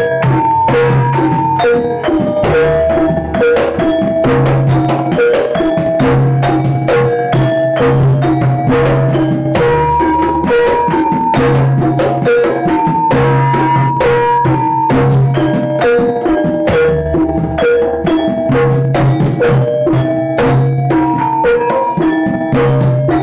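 Jaranan gamelan ensemble playing: drums beat a fast, steady rhythm under a repeating, stepping melody of struck tuned percussion.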